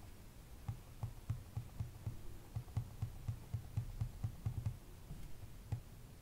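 A quick run of soft clicks, about three or four a second, from the buttons of a small handheld oscilloscope being pressed while its settings are changed.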